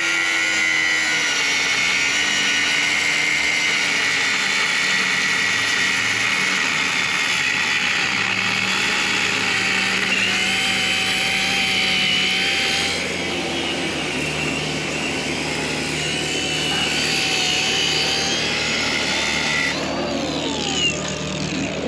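Cordless angle grinder cutting through rusted steel anchor bolts at the concrete floor: a steady high whine whose pitch shifts as the disc bears into the metal. The whine stops near the end.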